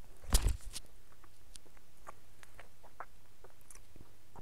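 Handling noise close to the microphone: a knock about half a second in, then scattered light clicks and rustles as a giant gummy sweet is turned over in the hands.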